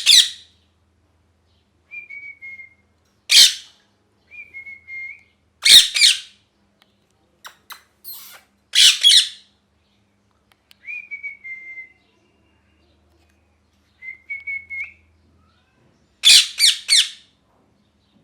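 Pet ringneck parrot screeching loudly and harshly, singly and in quick runs of two or three, with soft short whistles falling slightly in pitch in between. The owner calls these screeches its angry voice.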